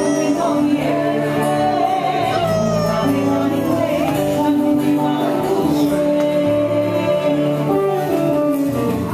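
Polynesian music with singing over held accompaniment notes, including a voice that slides in pitch.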